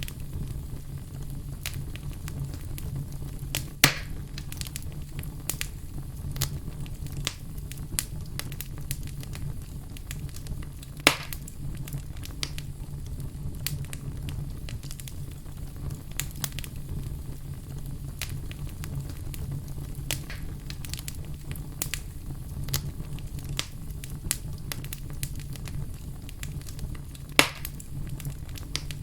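Fireplace fire crackling continuously: many small crackles over a steady low rumble, with three louder pops spread through, about four seconds in, around eleven seconds, and near the end.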